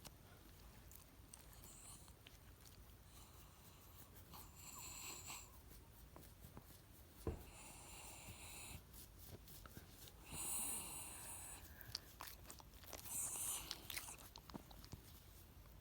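A dog making weird breathy noises while being petted, in four bouts of about a second each, with one sharp click about seven seconds in.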